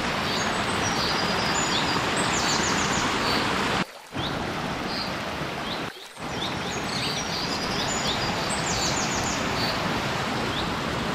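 Small forest waterfall and stream rushing steadily, with birds chirping high above the water noise. The sound cuts out briefly twice, about four and six seconds in.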